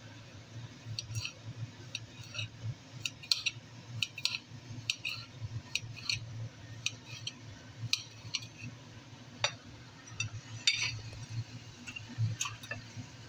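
A kitchen knife cutting carrot on a ceramic plate: irregular sharp clicks of the blade meeting the plate, about three a second, with a couple of louder knocks near the middle. A steady low hum runs underneath.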